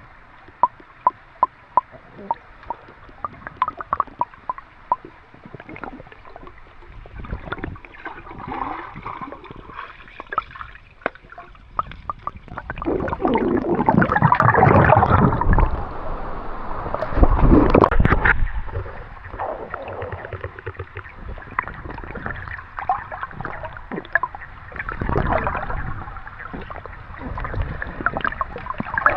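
Creek water gurgling and sloshing close to the microphone, with a run of sharp clicks in the first few seconds and louder rushing surges around the middle.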